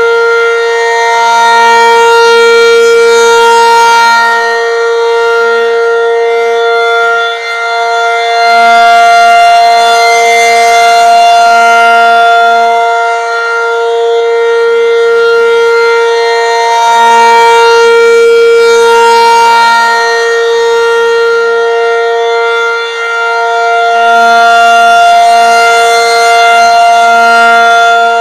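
Federal Signal 500-DH-TT outdoor warning siren sounding its steady alert signal: one unwavering loud tone, with loudness swelling and fading about every seven to eight seconds as the rotating siren head sweeps past.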